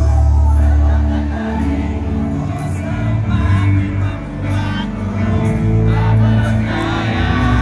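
Music with singing and a heavy, loud bass line played through a large outdoor concert sound system.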